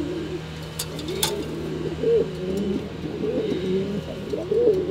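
Buchón (pouter) pigeons cooing, with low warbling coos overlapping one another, and two light clicks about a second in.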